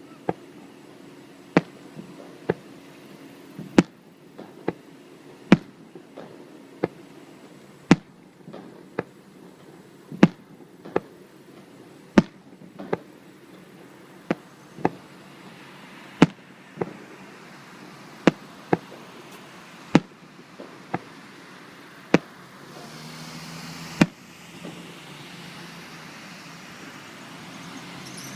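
Fireworks going off, a sharp bang roughly every second or so, some with a short echo after. The bangs stop about 24 seconds in, and a steady low rumbling noise rises through the last few seconds.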